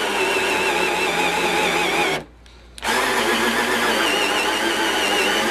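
Power drill spinning a hole saw into the face of a door to bore the knob hole. It runs for about two seconds, stops briefly, then starts again. It is driven slowly so that the centre pilot bit breaks through the back side before the saw does, to avoid chip-out.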